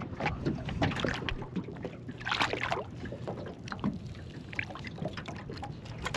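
Water splashing and trickling at the side of a small boat as a flathead is released, with a louder splash about two and a half seconds in and light knocks and clicks throughout.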